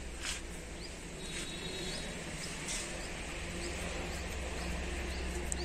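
Outdoor background: a steady low hum with faint, scattered short bird chirps and a few light clicks.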